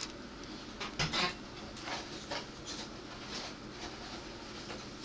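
Plastic model-kit parts being handled, with scattered light clicks and the rustle of clear plastic bags.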